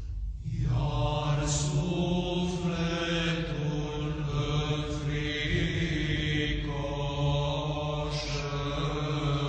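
Orthodox church chant sung in Romanian by men's voices: a slow melody over a held low drone, with a new phrase coming in about half a second in.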